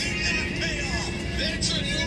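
Music playing over a steady low rumble of street traffic.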